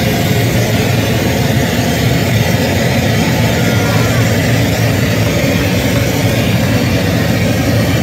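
Live harsh noise music: a loud, dense, unbroken wall of noise over a heavy low rumble.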